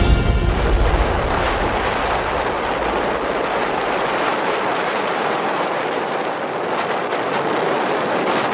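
Wind rushing over the microphone with wind-driven sea and waves behind it, a steady rush of noise; the deep rumble of the wind on the microphone eases about four seconds in.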